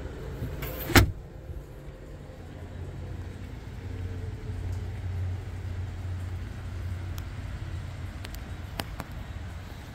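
One sharp thud about a second in as the hinged cargo floor panel of a BMW X5 boot drops shut over the underfloor compartment, followed by a steady low rumble and a few faint clicks.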